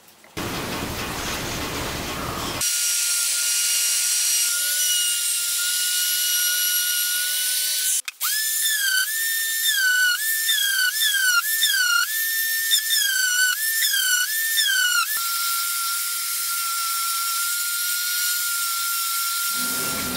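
Electric random orbital sander running with a high steady whine. Through the middle stretch its pitch dips and recovers about once a second as it is pressed down onto a small wooden board, then it runs steady again and stops just before the end. The first two seconds hold a short stretch of rushing noise.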